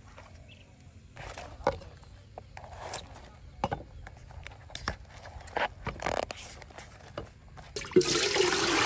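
Scattered scrapes, rustles and light clicks of a banana flower's red bracts being peeled back and handled. Near the end, water pours into an aluminium pot and splashes on its bottom, the loudest sound.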